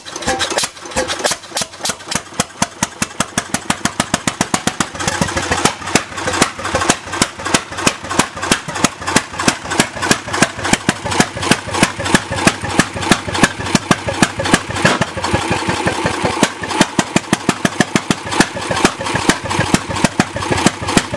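Antique Bessemer single-cylinder vertical gas engine starting and running, its unmuffled exhaust giving evenly spaced sharp firing pops, about two to three a second, that grow louder and slightly quicker over the first few seconds and then hold a steady slow beat.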